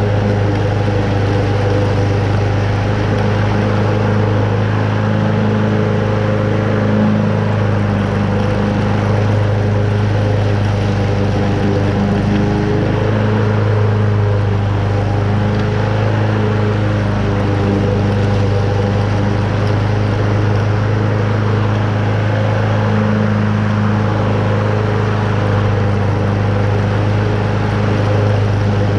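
Toro Super Recycler walk-behind mower's Honda single-cylinder engine running steadily at full speed, with the blade cutting moderately wet, tall grass.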